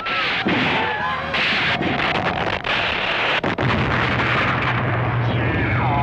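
Film soundtrack of rifles firing again and again in a dense din, with yells early on. About halfway through a steady low drone sets in, and near the end comes a swooping screech that falls and then rises, the giant pterosaur's cry.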